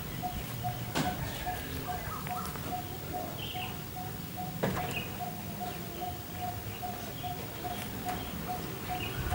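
A bird repeating one short, low note over and over, evenly about two and a half times a second, with other birds chirping faintly now and then.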